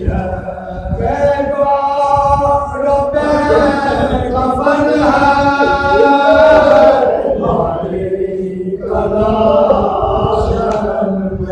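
Men's voices chanting a Muharram mourning lament, a lead reciter with his chorus of accompanying voices, amplified through a microphone. They draw out long held notes, the longest in the middle, with a brief break about eight seconds in.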